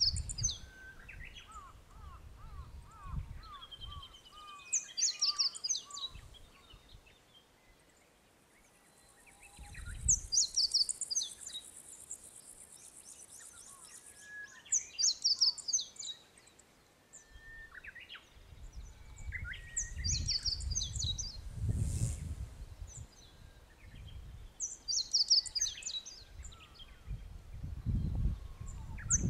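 Small songbirds singing outdoors: a short, bright, twittering phrase comes back about every five seconds, with a run of falling whistled notes near the start and other calls in between. A high, steady buzz runs for a few seconds about ten seconds in. Low wind rumble on the microphone comes and goes, heaviest in the second half.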